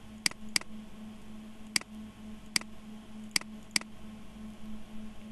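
Computer mouse button clicking six times, sharp single clicks with two quick pairs among them, over a steady low hum.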